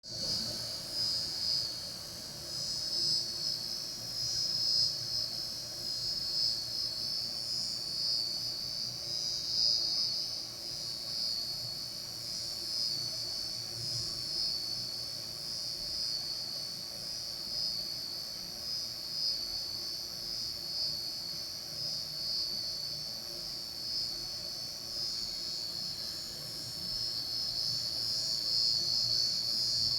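Fan running with a continuous high-pitched whine over a low hum: the abnormal noise the fan has developed.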